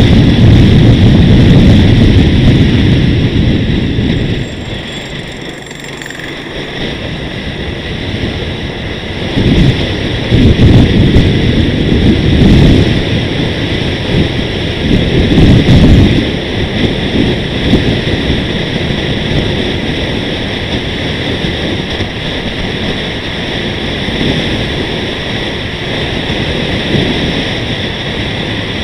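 Wind buffeting the microphone of an action camera riding on a moving vehicle at road speed, a low rumble that surges in gusts. Under it, a steady high whine.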